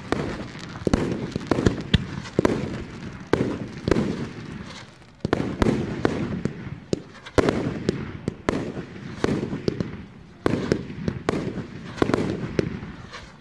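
Aerial fireworks going off in quick succession: sharp bangs about one to two a second, each trailing off in a low rumble.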